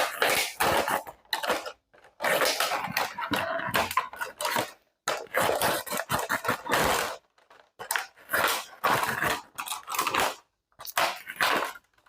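Slipjoint folding knife blade cutting through a plastic soda bottle: irregular bursts of cutting noise with short pauses between strokes.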